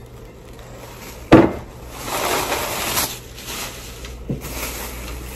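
Objects being handled and set down: one sharp knock about a second in, then a couple of seconds of rustling, and a smaller knock near the end.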